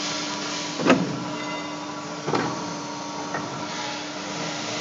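Hydraulic pipe bending machine running with a steady hum. Two metal clanks come about a second and a half apart, the first about a second in and the louder of the two, followed by a lighter click a second later, as the machine clamps and works on an exhaust pipe.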